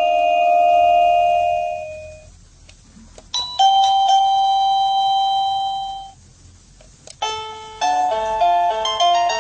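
Sadotech Model C wireless doorbell chime playing its electronic preset tunes. One melody's last note fades out, a two-note ding-dong rings out about three seconds in and dies away, and a quick tune of bright, stepping notes starts about seven seconds in.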